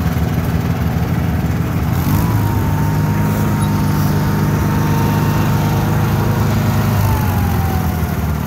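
Small garden tractor engine running under way, heard from the seat; about two seconds in it speeds up with a thin whine rising alongside, holds steady, and the whine glides down near the end as it slows.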